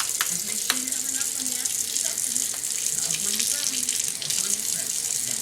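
Tap water running steadily, splashing irregularly as a parrot bathes under the stream.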